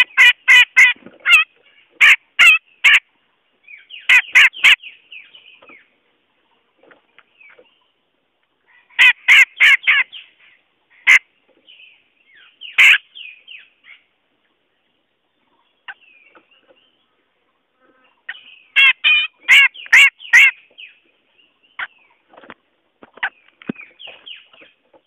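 Cucak jenggot bulbul calling: bursts of rapid, harsh chattering notes, several a second, each burst lasting a second or two and separated by pauses with scattered single notes. The loudest bursts come at the start, about nine seconds in, and about nineteen seconds in.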